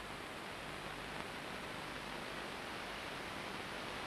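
Steady hiss and nothing else: the background noise of an old analogue video tape recording.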